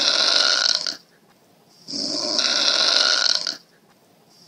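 Snoring: long rasping snores repeating evenly, each about a second and a half, with a second's pause between them.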